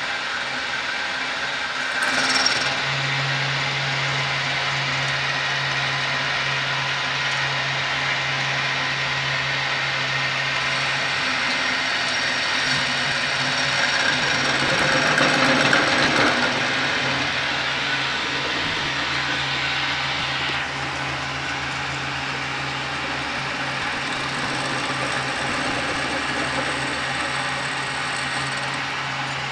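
Homemade lathe driven by a salvaged treadmill motor, running with the chuck spinning. Its steady motor hum carries a high whine that cuts out about two seconds in, where the sound drops in level. The sound swells briefly around the middle and eases slightly about two-thirds through.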